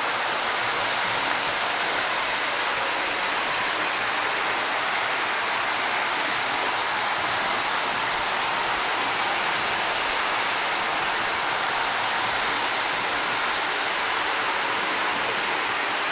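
Several postwar Lionel O-gauge trains running at once on three-rail tubular steel track: a steady, even whirring hiss of wheels and motors that does not change in level.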